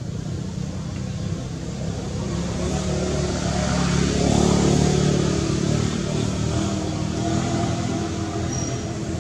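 A motor vehicle's engine running steadily, growing louder around the middle and easing off again.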